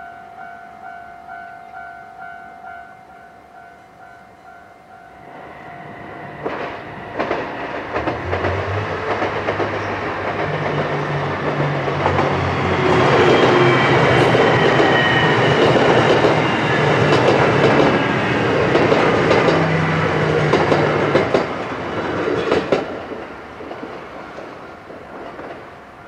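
Level crossing warning bell ringing in a steady repeating ding-ding, then drowned out as a diesel limited express train passes: a low engine drone, wheels clacking over the rail joints and a faint high wheel squeal, loudest mid-pass and cutting off about 23 s in, after which the crossing bell is heard again.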